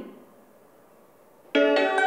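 Platform loudspeaker melody: after a second and a half of near quiet, a bright electronic chime tune of sustained keyboard-like notes starts abruptly, played by the station's automated announcement system as the train comes in.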